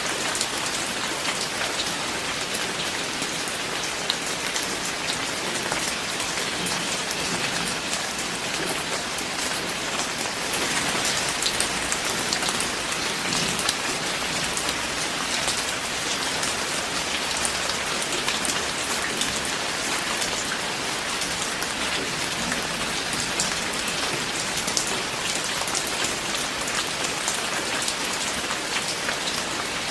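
Steady rain falling, a dense, even patter of many drops striking a surface.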